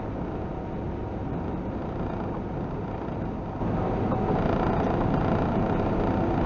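Steady in-cab noise of a semi-truck driving on the highway: engine rumble mixed with road and tyre noise, growing louder about three and a half seconds in.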